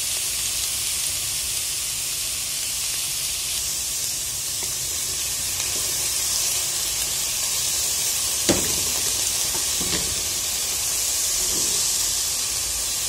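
Shredded cabbage frying in a pot, a steady sizzling hiss, while a wooden spoon stirs it and knocks against the pot twice, the louder knock a little past halfway.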